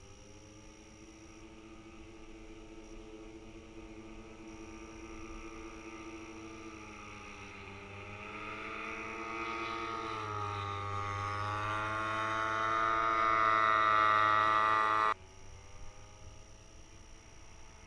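Walkerjet paramotor's two-stroke engine at full throttle during a launch and climb-out, a steady buzzing drone that grows louder over about fifteen seconds, wavers in pitch partway through, then drops sharply in level.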